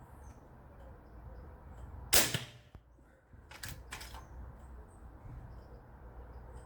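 An air rifle fires once about two seconds in, a sharp crack, followed about a second and a half later by two lighter clicks.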